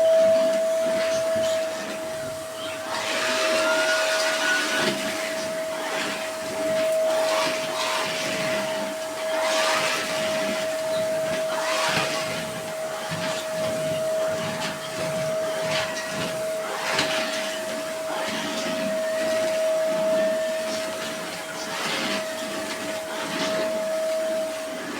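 Vacuum cleaner running, its motor holding one steady whine while the rush of suction swells and fades as the nozzle is pushed back and forth over the floor.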